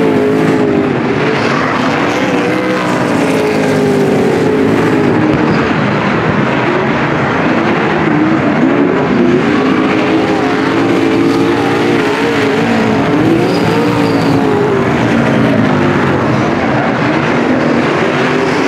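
Several Supersaloon speedway cars' V8 engines racing together, the revs rising and falling over and over as the cars slide through the turns and power down the straights.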